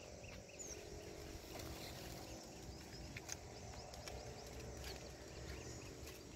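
Faint outdoor ambience: a low rumble of wind on the microphone with scattered faint high chirps and an occasional soft click.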